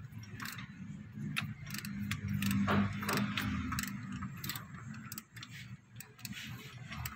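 Irregular metallic clicks and clinks from hand tools working on a car AC compressor, several a second, over a low hum that fades out about four and a half seconds in.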